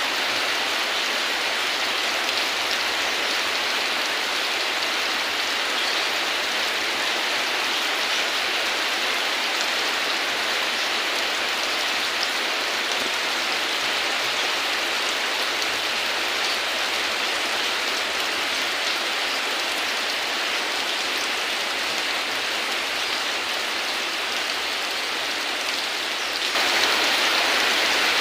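Heavy rain falling steadily, an even hiss of drops on surfaces. About two seconds before the end it abruptly becomes a little louder and brighter.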